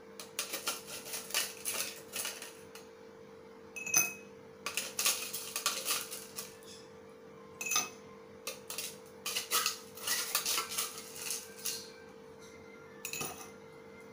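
A spoon and glassware clinking and clattering in irregular bursts of short knocks, over a faint steady hum.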